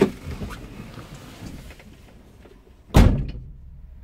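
A van's driver door shut with one loud slam about three seconds in, after a few knocks as the driver climbs out.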